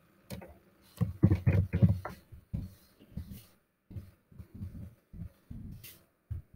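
Computer keyboard being typed on: an irregular run of dull keystroke taps, densest about a second in, then single taps a few tenths of a second apart.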